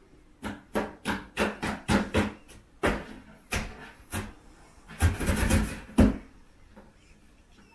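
Cardboard box knocked and scratched by Bengal kittens playing in and around it: a quick run of hollow thumps and taps, with a longer scuffling scrape about five seconds in.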